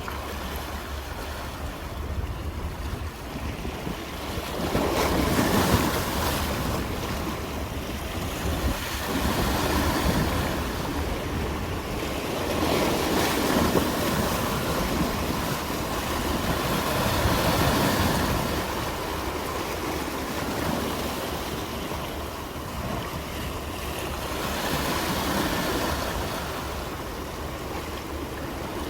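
Sea waves surging and washing in, the rush swelling and fading every few seconds.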